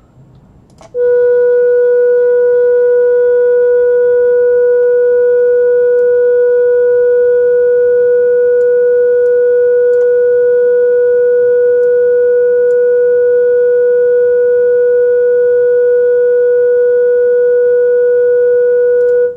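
A steady 488 Hz test tone from an online tone generator, played loudly through a computer monitor's speaker, with fainter overtones above it. It starts about a second in, just after a click, and cuts off suddenly near the end.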